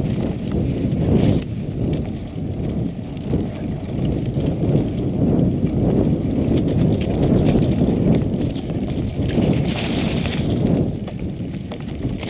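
Mountain bike riding fast over a rough dirt singletrack: a loud, continuous rumble of the tyres and the bike and camera mount rattling, with scattered knocks over bumps.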